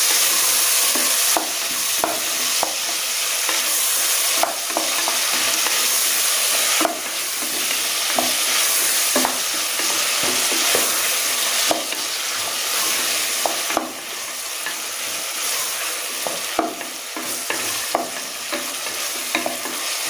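Chopped tomatoes and onions sizzling in hot oil in an aluminium pressure cooker while being stirred with a wooden spatula, which scrapes and knocks against the pot at irregular moments.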